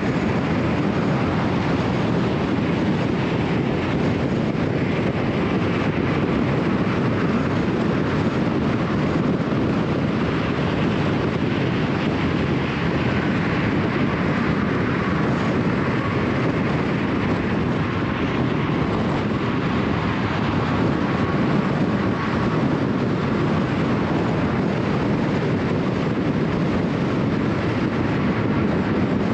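Steady road and tyre noise with wind rush from a car cruising at highway speed, an even rumble that holds level throughout.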